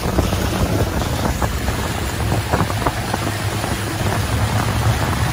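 Motorboat engine running steadily under way, a low rumble mixed with the rush of the wake and wind on the microphone.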